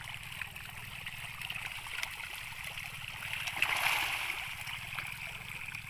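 Patin (pangasius catfish) churning and splashing at the pond surface as they snatch thrown feed, with many small splashes and a bigger splash about four seconds in.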